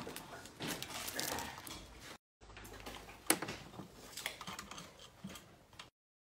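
Rustling and light knocks of plastic-wrapped round ceiling air diffusers being handled. After a brief cut comes a second stretch of scattered clicks and knocks, with one sharp click in the middle, and the sound cuts out about six seconds in.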